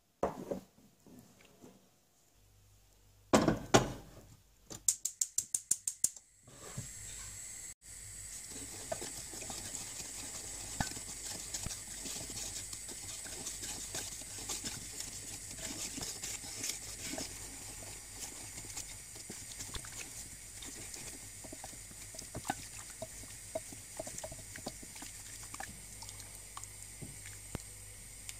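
Sugar syrup of water and sugar being stirred with a wooden spatula in a stainless steel saucepan over a gas burner, a steady hiss with small crackles and scrapes of the spatula against the pan. Before it, in the first few seconds, come two loud knocks and then a quick run of about ten clicks.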